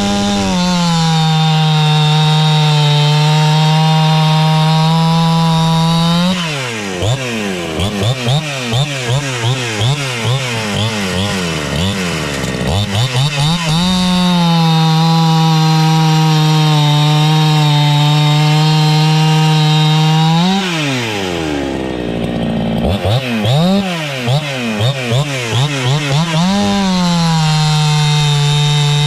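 Ported Husqvarna two-stroke chainsaw with a new X-Cut C83 chain running at full throttle through a log, chips spraying. Its high engine note holds steady through three long stretches. In between, the engine is blipped rapidly up and down, and about 21 seconds in it drops briefly to idle.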